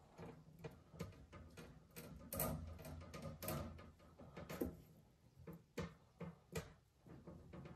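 Painting tools being handled: scattered light clicks, taps and short scrapes at an uneven pace, the loudest about halfway through.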